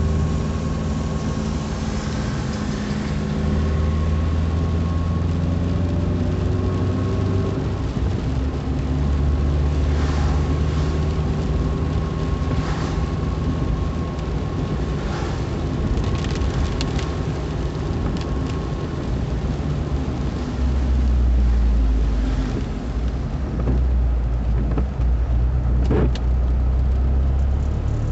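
Car running along a rain-wet road, heard from inside the car: a steady engine note and road noise, the engine pitch shifting as speed changes, with a few short clicks or swishes along the way.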